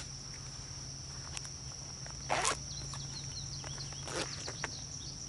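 Steady high-pitched insect trill, with two short rustles about two and a half and four seconds in.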